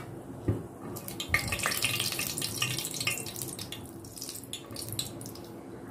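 Whole cloves and green cardamom sizzling and crackling in hot ghee, being fried briefly to temper the ghee. The crackle picks up about a second in and dies down toward the end.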